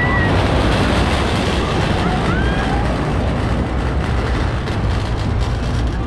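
Steel roller coaster train running along its track, a steady rumble that swells about a second in as it passes close by, with short high squeals or shouts around two seconds in.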